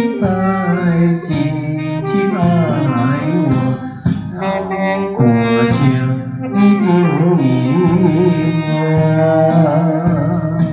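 Music: an instrumental passage of a slow love song between sung verses, a held lead melody with vibrato over backing chords.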